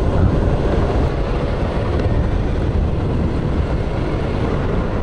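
Honda Lead 125 scooter's single-cylinder four-stroke engine running at a steady cruise, with wind and road noise on a helmet-mounted microphone.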